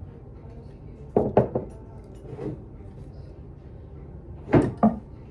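Glass candle jars being picked up and set down on a wooden table: a quick cluster of knocks and clinks about a second in, and another near the end.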